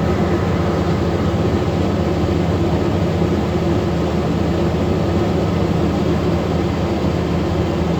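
Concrete crusher running steadily under load, a heavy machine's engine holding an even, unchanging note.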